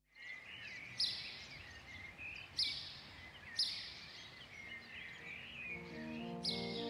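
Birds chirping and calling over faint outdoor ambience, with a few sharper, louder calls standing out. Soft music with sustained low notes fades in near the end.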